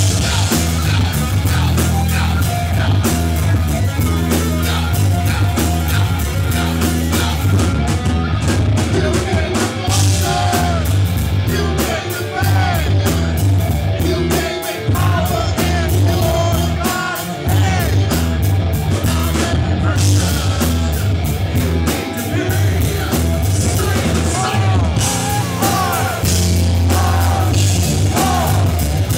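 Live rock band playing loud and without a break: electric guitar, bass guitar and drum kit, with a lead singer's voice over them.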